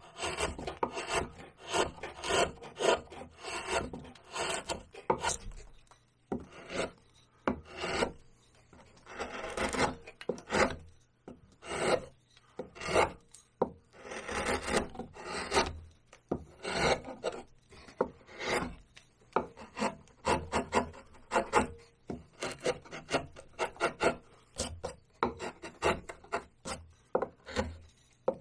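Hand carving gouge slicing into cottonwood bark: a run of short, crisp paring cuts in quick clusters, with brief pauses between.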